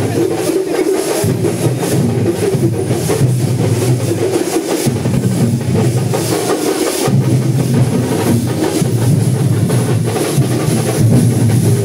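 Loud drumming with music: rapid percussion over a deep, steady low part that drops out briefly near the start and again around the middle.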